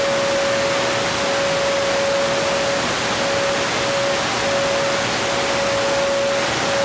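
Shortwave static hiss from a Tecsun PL-310ET portable receiver tuned to 7585 kHz, with a steady mid-pitched whistle running through it that briefly wavers about halfway through. It is the sound of a weak, noisy signal with almost no margin over the noise.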